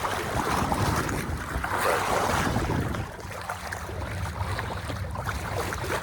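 Bow wave of a sailboat under way: water rushing and splashing against the hull as it cuts through, in swells that ease after about three seconds, with wind on the microphone and a steady low hum underneath.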